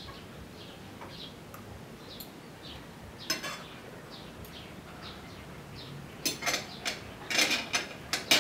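Fork and spoon clinking and scraping against a ceramic plate: a short clatter about three seconds in, and louder clusters over the last two seconds. Faint, short high chirps repeat in the background.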